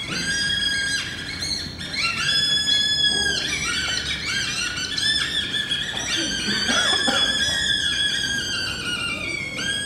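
Violin playing long, very high held notes that slide between pitches, some of them overlapping.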